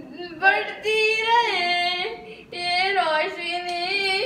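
A woman singing an Urdu patriotic song (milli naghma) without accompaniment, in two phrases with long held notes.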